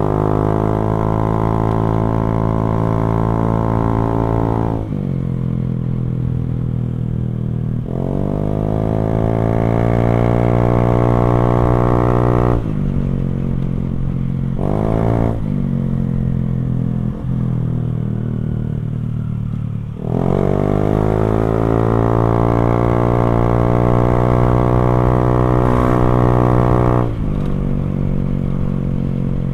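Motorcycle fitted with an aftermarket NOB1 exhaust (knalpot) riding along, its exhaust note climbing in pitch as it accelerates and dropping sharply each time the throttle closes, several times over.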